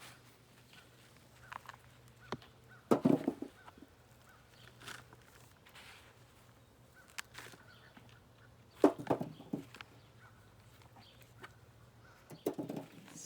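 Three short bursts of rustling, scraping and knocking from digging red potatoes out of a pot of soil: about three seconds in, again near nine seconds, and just before the end.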